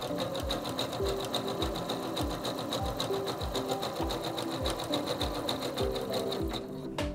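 SINGER C430 computerized sewing machine sewing a zigzag stitch at a steady speed: a rapid, even rhythm of needle strokes that stops near the end.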